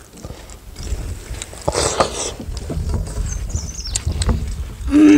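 Eating sounds: fingers mixing rice on steel plates, chewing, and light clinks of steel dishes, over a low rumble of wind on the microphone, with a short rushing noise about two seconds in.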